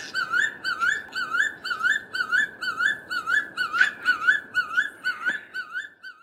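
African crowned eagle calling: a long, even series of high, ringing whistled notes, each rising and then falling, about two and a half a second.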